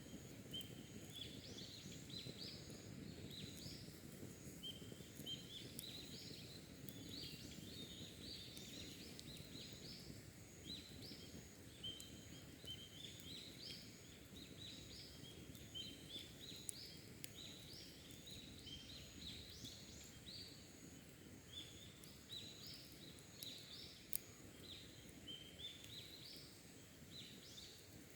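Wild birds singing: many short chirping notes repeated over and over, with a faint steady background hiss and a couple of sharp clicks.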